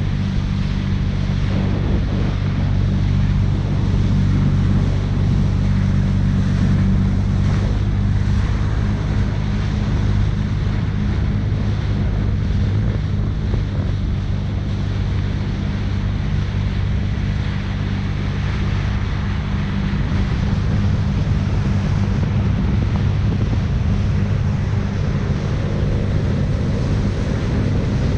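Jet ski engine running at a steady pitch while riding, with wind buffeting the microphone and water rushing past.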